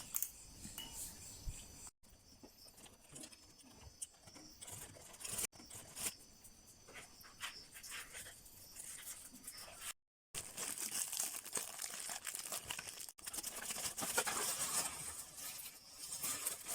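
Bicycle parts and hand tools being handled: a jumble of small clicks, rattles and scraping, broken off abruptly several times.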